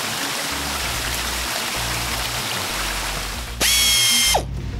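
Cartoon sound effect of water spraying from car-wash nozzles, a steady hiss, over background music. Near the end, a loud whistling tone sweeps up, holds briefly and drops away.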